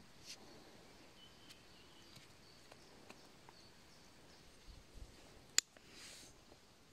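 Faint clicks and scrapes of a folding knife trimming the stem of a freshly picked bolete mushroom, with one sharp click about five and a half seconds in and a short scraping rustle just after.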